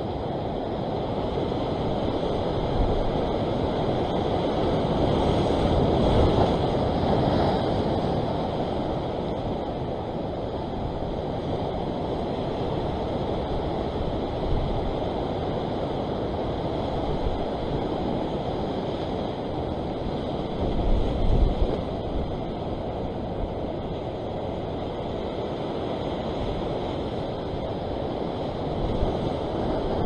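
Sea waves washing and surging against a rocky shore ledge, one swell building and breaking about five to eight seconds in. Wind buffets the microphone in short low bursts about two-thirds of the way through and again near the end.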